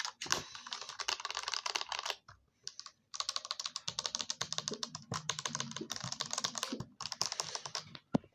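Keyboard keys and keycaps clacking in dense, rapid runs of clicks, with a pause of about a second a couple of seconds in and brief breaks later on.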